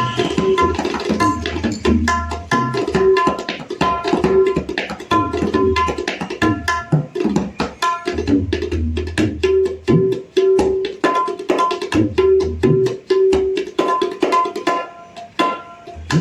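A tabla pair played fast in a sound check: the dayan rings clearly at its tuned pitch, F sharp, while the bayan adds deep booming bass strokes in stretches between the rapid treble strokes. The new drums are sounding well, bright and in tune.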